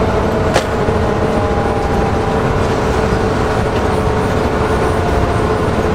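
Sutphen fire engine under way, heard from inside its cab: steady engine and road noise with a steady hum, and one sharp click about half a second in.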